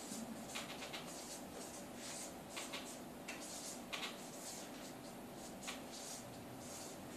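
A marker writing on a board: short, scratchy strokes in irregular runs with brief gaps between them, in a quiet room.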